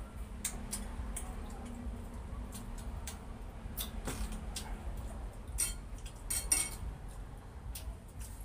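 Light clinks and taps of china plates, bowls and a spoon during a meal eaten by hand, scattered through, with a quick cluster of clinks about six seconds in.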